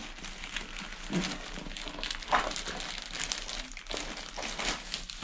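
Packaging crinkling and rustling as it is handled and opened, with a few light knocks.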